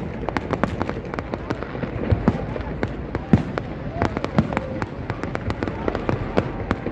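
Fireworks going off in quick, irregular succession: many sharp bangs and crackles, several each second, overlapping one another.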